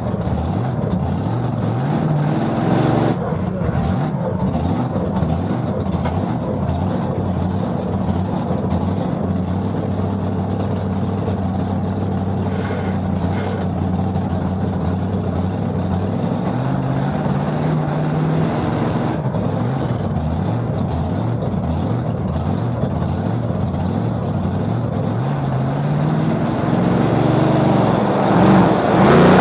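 V8 engine of a two-wheel-drive pulling pick-up running at a held speed, its pitch stepping up and down a few times. It builds towards the end of the stretch.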